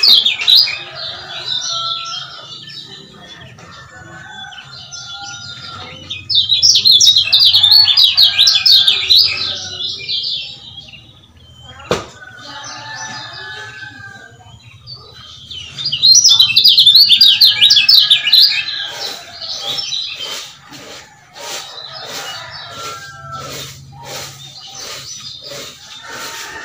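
Lemon-bellied white-eye (kecial kuning) singing: loud, rapid, high-pitched trilling bursts of a few seconds each, three times, with softer chirps between. In the later part it gives a run of sharp, evenly repeated chip notes, about three a second.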